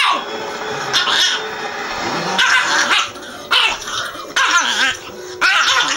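Staffordshire bull terrier puppies play-fighting, yapping and barking in short high-pitched bursts about once a second.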